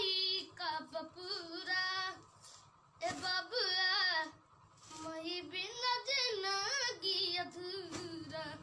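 A young boy singing without accompaniment, in several phrases broken by short pauses for breath.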